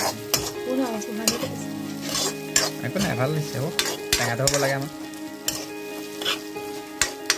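Steel spatula scraping and clacking against an iron kadai as tomatoes, onions and green chillies are stirred and sizzle in hot oil, with repeated irregular scrapes.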